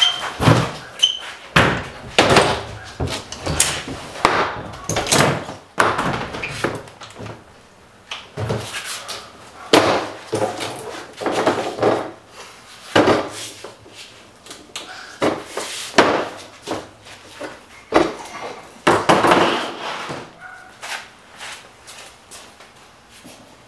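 Irregular thumps, knocks and scrapes of a plastic folding table and stacked storage containers being carried and loaded into an SUV's open cargo area.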